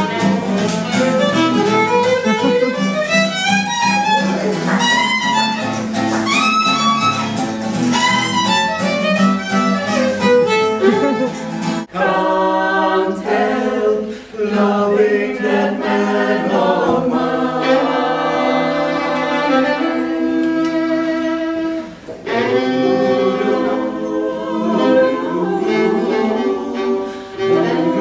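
A fiddle playing a tune over acoustic guitar accompaniment. About twelve seconds in it cuts abruptly to a group of women singing together, and a fiddle is heard again in the last few seconds.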